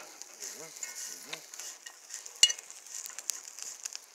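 Mushrooms and onions sizzling in a cast-iron skillet over hot charcoal while a metal utensil stirs them, scraping and clicking against the pan. One sharp clack of the utensil on the pan comes about two and a half seconds in.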